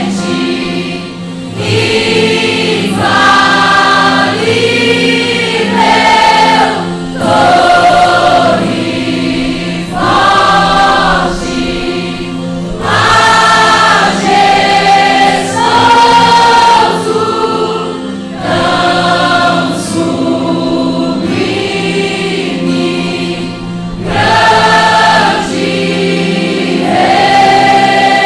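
A choir singing a Christian worship song in long, held phrases over steady low instrumental accompaniment.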